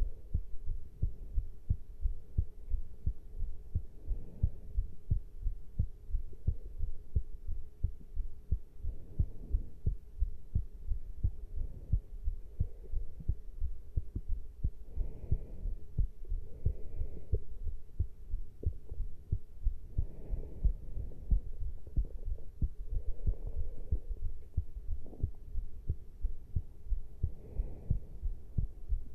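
A person's heart beating after caffeine intake: a steady run of repeated low heart thuds over a faint steady hum.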